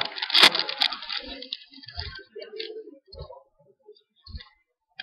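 A trading-card pack wrapper crinkling and rustling in the hands for about the first second and a half. Then come a few scattered light taps and knocks as the cards are handled.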